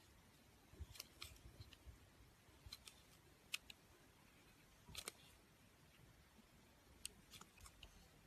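Slime being pressed and poked by hand, making faint, scattered crisp clicks and pops with short pauses between them.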